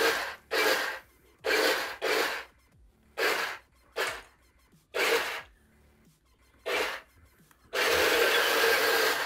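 Radio-controlled toy Tiger I tank's electric drive motors and plastic tracks whirring over a wooden floor in a string of short stop-start bursts, about half a second each. It then runs continuously for the last second and a half.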